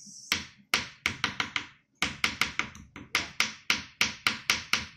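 Kitchen knife chopping green onions on a wooden cutting board: sharp knocks of the blade striking the board, a short run of about six, a brief pause, then a longer run at about five a second.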